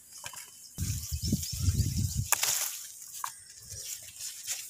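Handling noise from picking brinjals off the plants into a plastic colander: irregular low rumbling thumps and rustling, with a sharp click about two and a half seconds in and a smaller one just after three seconds.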